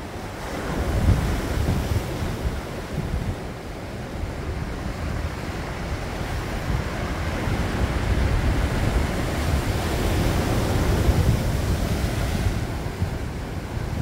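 Sea waves breaking and washing on a rocky shore, swelling a little about a second in and again more strongly past the middle. Wind buffets the microphone with a low rumble throughout.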